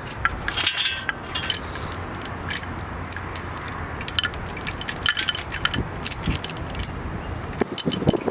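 Metal chain links clinking and rattling in a run of sharp irregular clicks as an engine hung on lifting chains is lowered into place, over a low steady hum.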